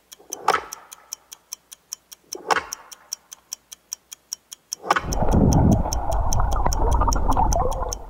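Intro sound effects: a steady clock-like ticking, about four ticks a second, with two falling swooshes about two seconds apart. About five seconds in, a loud, deep rumble takes over.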